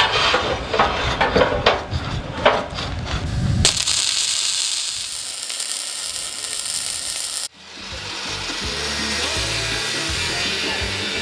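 Electric arc welding on steel: after a few seconds of irregular clicks and knocks, the arc runs as a loud, steady crackling hiss for about four seconds, then cuts off abruptly. Background music with a steady hiss follows.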